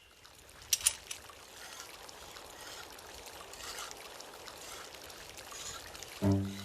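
Hot spring water trickling and pouring steadily, with two short clicks about a second in. A low pitched sound comes in near the end.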